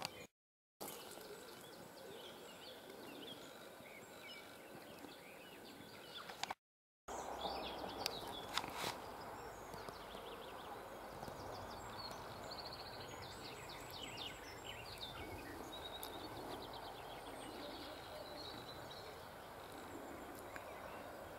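Outdoor countryside ambience: birds chirping and singing over a steady background rush. The sound cuts out completely twice for a split second.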